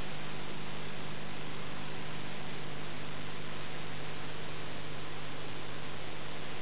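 Steady electrical hum over an even hiss, unchanging throughout, with no other sound.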